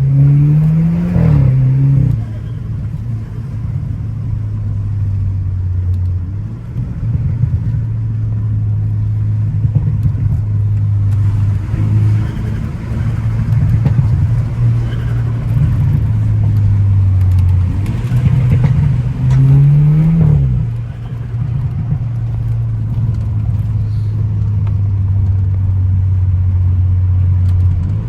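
Car engine under way on a winding road, mostly holding a steady note. Twice the revs climb quickly and then fall away: once in the first couple of seconds and again about two-thirds of the way through.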